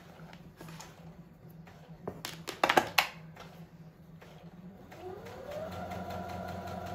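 A few loud clicks from the controls of a Brother CS7205 computerized sewing machine, then its motor starts with a rising whine and settles into a steady run as it stitches by itself, without the foot pedal.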